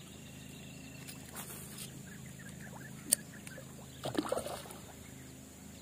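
Hooked snakehead splashing faintly at the water surface as it is reeled in on a baitcasting rod, with one sharp click about three seconds in, over a steady low hum.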